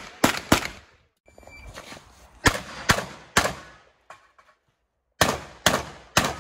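Rapid gunfire from a competition long gun in quick strings of three shots about half a second apart, each shot cracking and ringing briefly, with short pauses between the strings.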